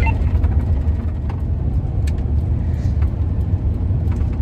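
Steady low rumble of engine and road noise inside a moving van's cabin.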